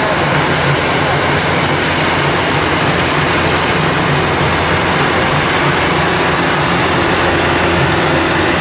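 Kubota DC-105X rice combine harvester running steadily while cutting and threshing: a loud, even engine drone with a steady rushing hiss over it.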